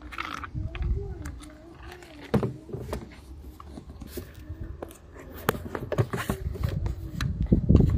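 A plastic mud flap and its plastic push-in clips being handled and fitted against a car's wheel arch: scattered clicks and knocks, one sharper click about two and a half seconds in, and rubbing and handling noise that grows louder near the end.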